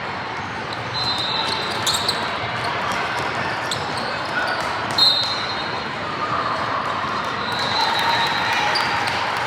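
Indoor basketball game sound in a large gym: a ball bouncing on the court amid a steady hall murmur, with a few sharp knocks and several short, high squeaks.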